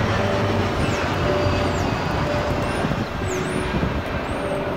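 Jet airliner flying low overhead on its approach to land: a steady engine rumble with a few low humming tones, easing slightly near the end. Faint short high chirps sound over it.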